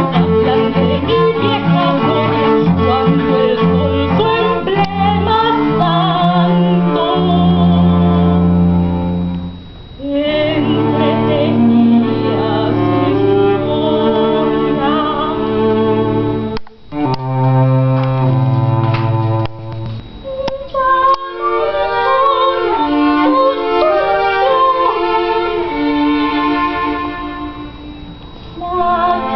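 A woman singing a Peruvian song with violin and cello accompaniment, played live, with a few short breaks between phrases.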